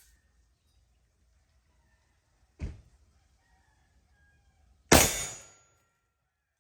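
A single loud gunshot from a Desert Eagle .50AE pistol about five seconds in, with a short ringing decay, preceded by a fainter sharp bang about two and a half seconds in.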